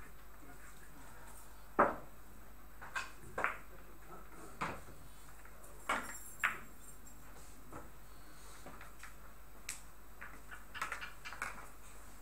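Billiard balls clicking against one another and the cushions, along with the tap of a cue tip on a ball, on a carom table. The loudest click comes about two seconds in, several more follow over the next few seconds, and a few faint ones come near the end.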